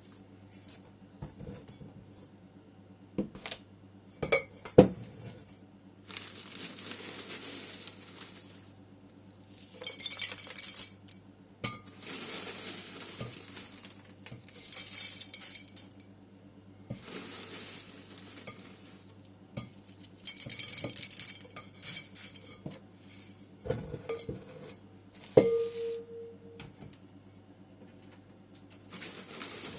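Hands at work planting in ceramic pots: repeated short stretches of soil rustling and pouring, broken by sharp knocks and clinks against the ceramic, one of them ringing briefly near the end.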